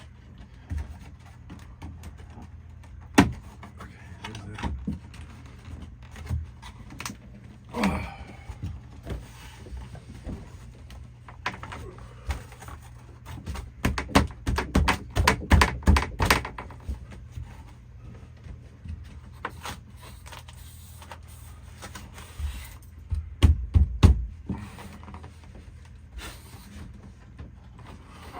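Irregular knocks, taps and scrapes of a thin wooden panel being worked loose from a window frame, where it sticks on butyl tape. There is a sharp knock about three seconds in, and bursts of rapid knocking in the middle and again near the end.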